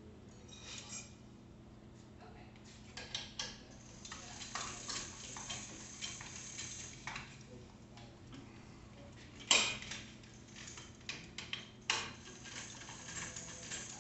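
Small metallic clicks and rattles of hands working on a mountain bike in a repair stand, with a sharp louder click about halfway through and another a couple of seconds later.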